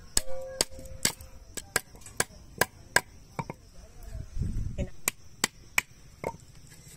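Crisp chopping clicks as a catfish is cut on a boti, a fixed curved blade, while its head is severed. The clicks come irregularly, about two or three a second, with a short gap and a low rumble about halfway through.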